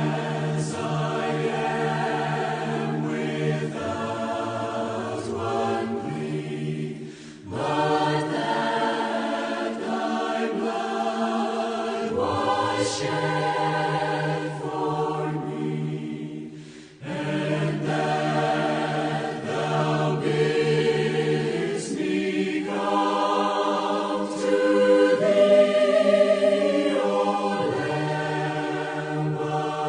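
Choir singing in long sustained phrases, with short pauses about seven and seventeen seconds in.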